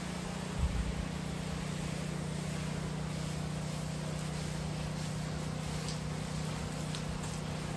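Soft-wash pump humming steadily while the wand sprays a light mist of conditioner onto house siding, with an even hiss. A low thump comes about half a second in.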